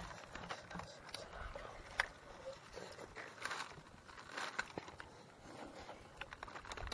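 Small clicks and rustles of hands picking apart grilled fish on a mat of dry leaves, with some chewing and a sharp click about two seconds in.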